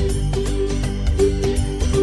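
Background music with sustained notes over a bass line and a steady beat.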